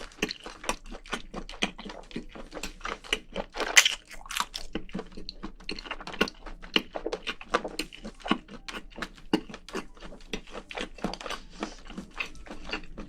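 Close-up eating sounds of spicy braised seafood: steady chewing with crunching and many quick, wet mouth clicks.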